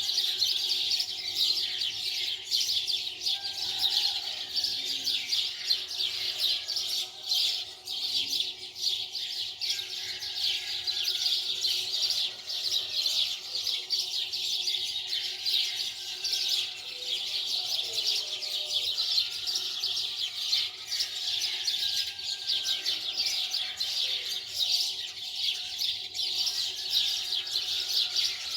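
Many small birds chirping at once: a dense, steady chatter of rapid high chirps without a pause.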